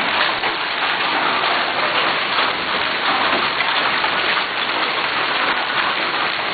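Heavy hail and rain pelting down in a steady, dense hiss and patter.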